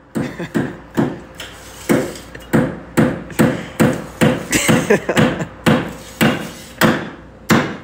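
A small hand-held tool rapped over and over: about twenty sharp knocks, two to three a second in an uneven rhythm, each with a brief ringing tone.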